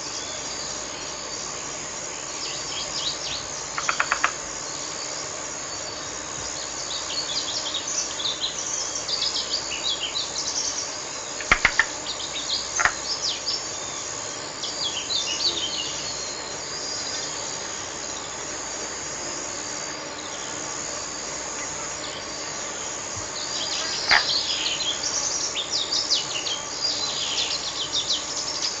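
Countryside nature ambience: a steady high insect drone, with many small birds chirping and twittering over it and a few sharper, louder calls.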